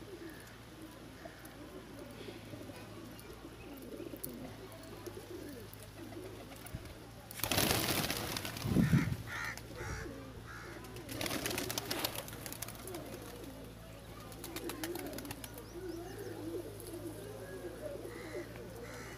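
Domestic pigeons cooing continuously. Twice about midway, two loud rushing bursts of noise stand out above the cooing.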